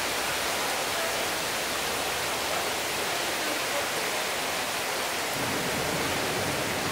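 Heavy downpour falling on rooftops: a dense, steady hiss.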